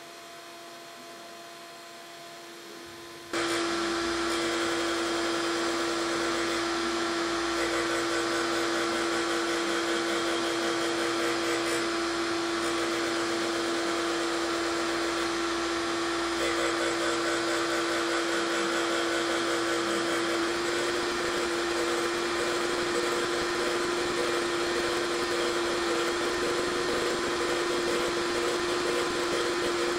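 Surface grinder: a quieter steady hum for about three seconds, then abruptly the loud, even hiss of the grinding wheel skimming the rust-pitted magnetic sine chuck part, over a steady spindle whine, swelling slightly now and then as the table traverses. The workpiece is being skimmed lightly before it is finished by hand with stones.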